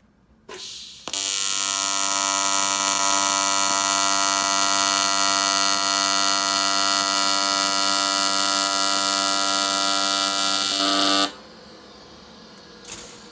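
AC TIG welding arc on aluminum intercooler piping: a short hiss as the arc strikes, then a steady loud buzz for about ten seconds that cuts off suddenly, leaving a low hum.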